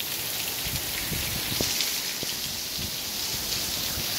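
Heavy rain pouring down steadily, a dense, even hiss, with a few dull low thumps in the first half.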